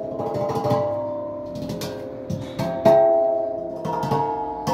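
Steel LPG gas cylinders struck with the hands as a percussion instrument, each hit ringing out with a clear, slowly fading bell-like tone. The hits come at several different pitches, forming a short tune, and the loudest hit falls about three seconds in.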